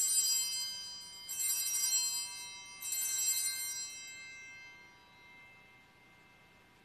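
Altar bells rung three times, about a second and a half apart, each ring a bright jingling peal that dies away over a couple of seconds. They mark the elevation of the chalice at the consecration.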